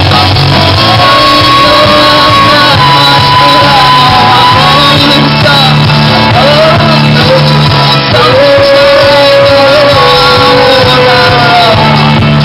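Live pop-rock band playing loud: a woman sings lead, holding long notes, over electric guitars, keyboard and drums.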